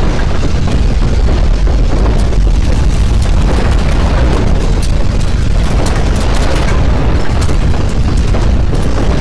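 Earthquake shaking: a loud, continuous deep rumble, heaviest in the bass, with many short crackles through the middle.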